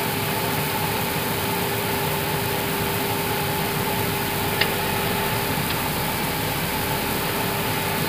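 Steady air-conditioning hiss and hum inside an Airbus A320 cockpit, with the engines not yet started. A single light click about halfway through.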